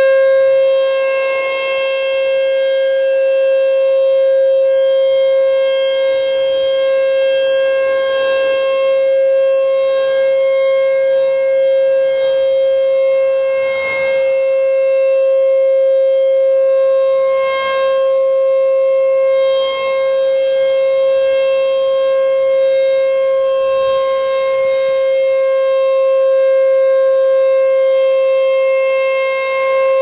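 American Signal T-128 rotating tornado siren sounding its steady alert tone. The tone holds one pitch with no rise or fall, and the loudness swells and fades gently as the horn turns on its rotator.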